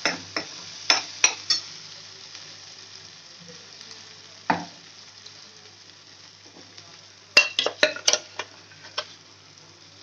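Ground masala paste frying in oil in a metal kadai with a steady sizzle, while a steel ladle stirs it, clinking and scraping against the pan a few times, in a quick cluster near the end.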